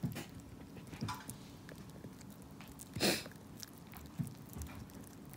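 Small dog gnawing on a dog chew: irregular wet chewing with crunches and teeth clicking, the loudest crunch about three seconds in.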